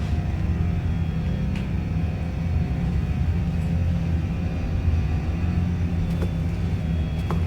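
A steady low rumble, with a few faint short clicks near the end.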